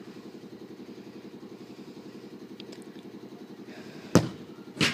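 A bare foot kicks a football hard once, about four seconds in, followed about 0.7 s later by a second, weaker thud from the ball striking something. A steady, low pulsing engine hum runs underneath.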